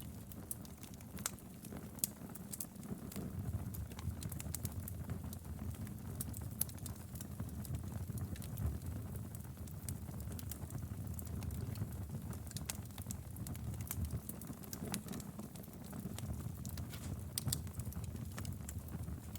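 Wood fire in a fireplace crackling, with frequent sharp pops and snaps over a steady low rumble of the flames.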